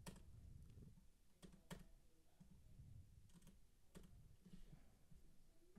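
Faint computer keyboard keystrokes: a handful of separate key clicks spread through near silence, with a low room hum underneath.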